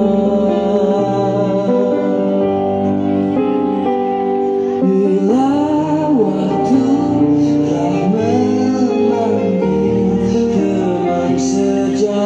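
Background song: a voice singing with instrumental accompaniment, the sung line bending in pitch from about five seconds in.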